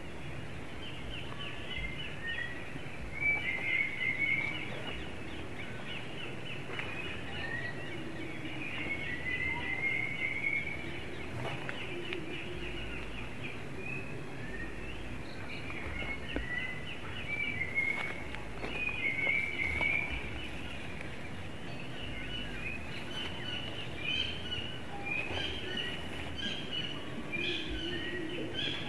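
Outdoor forest ambience: birds chirping in short, repeated phrases throughout, over a steady background hiss with occasional low rumbles.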